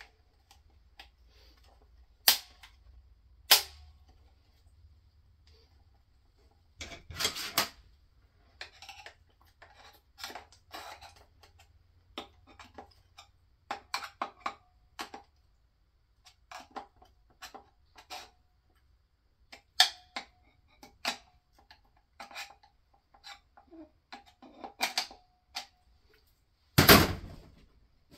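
Scattered metallic clicks and clinks of a screwdriver prying at the internal parts of a 4L80E transmission case, around the input shaft, with a louder clatter near the end.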